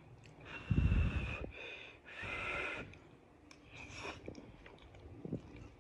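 A person breathing heavily through the nose while eating close to the microphone: three loud, hissy breaths about a second and a half apart, the first buffeting the mic, with faint mouth clicks from chewing between them.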